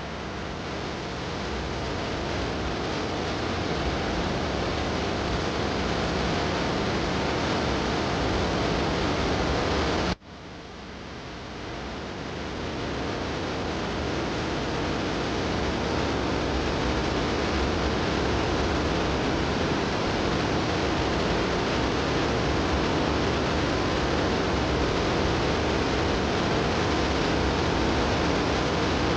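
Steady rushing noise with no clear pitch, like heavy rain or running water. It cuts out sharply about ten seconds in and fades back up over the next few seconds.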